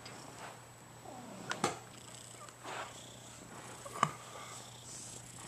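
Domestic ginger tabby cat purring softly, with a couple of sharp clicks: one about one and a half seconds in and one about four seconds in.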